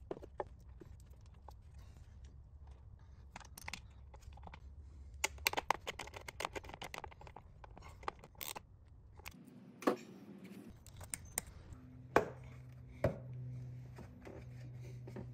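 Scattered clicks, scrapes and knocks of plastic and metal engine parts being handled: ignition coils and their connectors going back in and the plastic engine cover being set in place. The clicks come thickest about halfway through, with a few louder single knocks later on.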